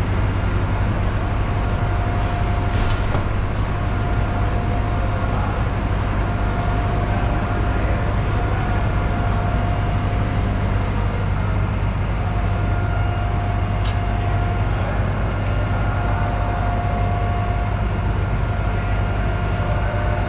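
Steady machinery noise inside a ship's machinery space: a loud, deep hum with a thin steady whine above it that fades in and out, and a few faint ticks.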